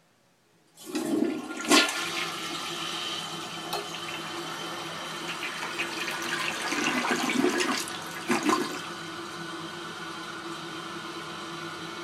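Toilet flushing, a toilet the owner takes for an Eljer Hygeian: a sudden rush of water about a second in with a sharp click just after, swirling noisily down the bowl with strong surges near the end of the flush, then a steadier, quieter rush of water as it refills.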